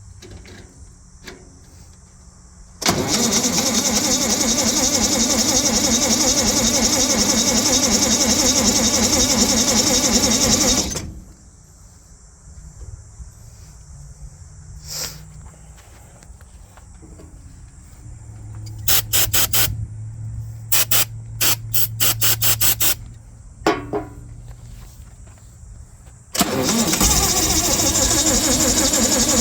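Lincoln SA-200 welder's gas engine being cranked by its starter without catching: one long crank of about eight seconds, a run of short stuttering bursts later on, then cranking again near the end.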